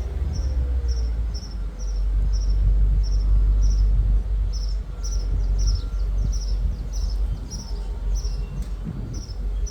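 Low, steady rumble of the Mercedes CLK500 running during a test of its convertible top, just repaired with a new top microswitch. A high, regular chirp sounds about twice a second over it.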